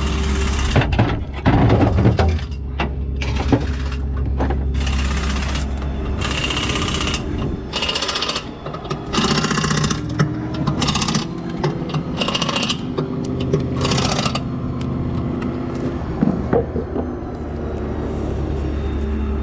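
Impact wrench working the wheel nuts on a combine's rear wheel: about a dozen short rattling bursts, each under a second, some coming in quick pairs, over a steady low hum.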